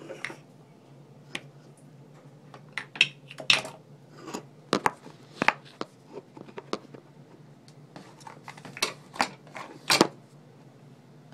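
Handling noise from a phone being gripped and moved about while it films: irregular clicks, taps and rubs against the microphone, the loudest about three and a half seconds in and again near the end, over a faint steady low hum.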